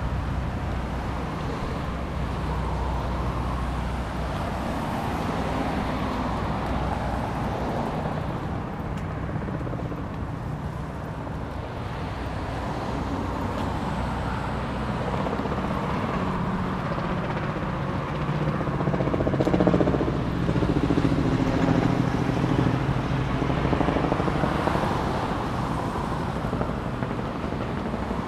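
Road traffic: a steady wash of passing cars, with one engine passing close and loudest about twenty seconds in, its pitch sliding as it goes by.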